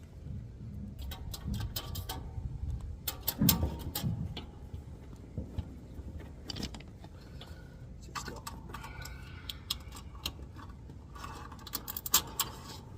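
Irregular clicks, taps and light metallic clinks of hand tools and small parts being handled during wiring work on an HVAC unit, with some brief rustling between them.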